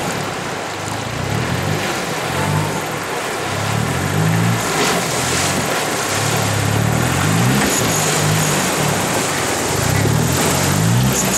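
A Toyota Hilux D-4D diesel pickup's engine and splashing water as it fords a shallow rocky river, under music with a repeating bass line.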